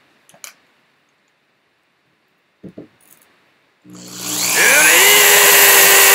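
A few light clicks of a screwdriver on the metal enclosure, then about four seconds in a loud electric-drill whine that spins up, rising in pitch, and holds steady.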